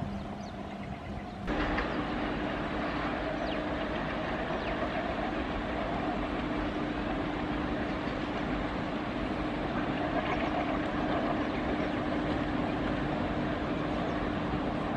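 Indian Railways electric locomotives running toward the listener on parallel tracks: a steady rumble of the moving trains with one constant hum. It starts abruptly about a second and a half in.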